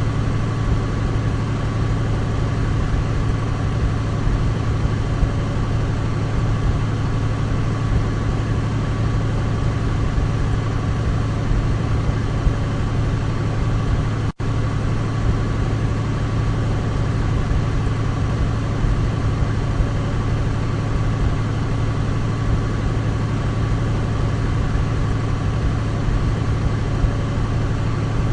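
Douglas DC-3's radial piston engines running with a steady, even drone, with one momentary dropout about halfway through.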